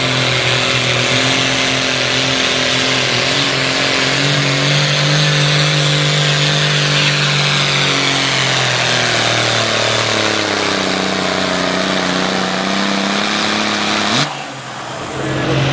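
John Deere 4430 pulling tractor's engine at full throttle as it drags the weight sled down the track. It holds a high, steady pitch, then drops lower over several seconds as the sled's load builds and the engine is pulled down. Near the end the sound cuts out briefly and comes back.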